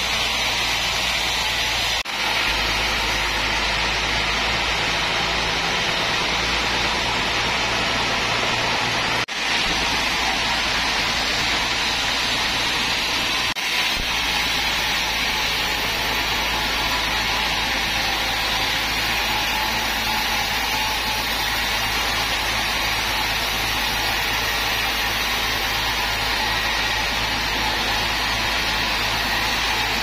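Band sawmill running steadily, its blade cutting through a teak log, a dense unbroken machine noise. It drops away briefly about 2, 9 and 14 seconds in.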